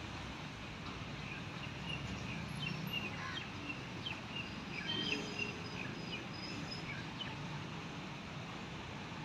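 Outdoor ambience: a steady background hiss with scattered short bird chirps, most of them in the middle.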